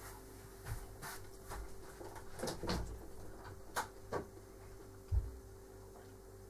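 Faint scattered knocks and clicks of objects being handled, about eight over several seconds, over a faint steady hum.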